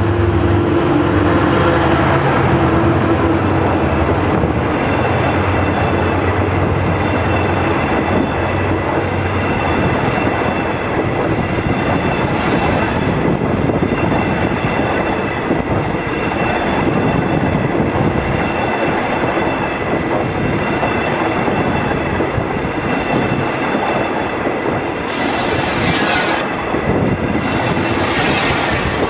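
Diesel locomotive of a passenger express train passing close by, its engine drone fading over the first ten seconds or so. Then comes the steady rumble and clatter of the passenger carriages' wheels on the rails, with a thin high whine over it and two short hissing bursts near the end.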